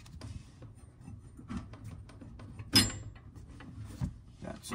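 Handling noise from copper pipe and fittings being fitted together: small knocks and rubbing, with one sharp metallic clink about three seconds in.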